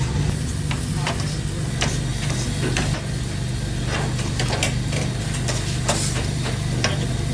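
Chicken for shawarma sizzling as it fries, with irregular sharp clicks and scrapes of metal utensils stirring it, over a steady low hum.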